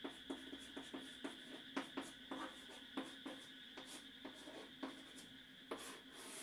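Chalk writing on a blackboard: a string of irregular sharp taps and short scratches, a few each second, as the chalk strikes and drags across the board, over a faint steady hum.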